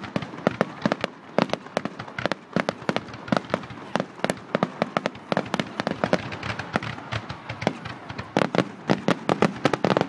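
Fireworks display: a dense, rapid run of sharp bangs and crackling reports, several a second without letup.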